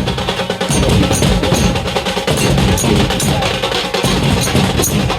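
Loud percussion music with a steady drum beat and sharp, evenly spaced clacks, from the drumming in a festival procession that people are dancing to.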